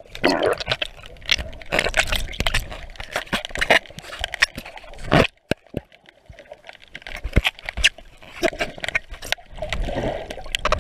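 Water heard from underwater through a dropped GoPro's waterproof housing: muffled gurgling and sloshing with many sharp clicks and knocks against the housing. The loudest knock comes about five seconds in.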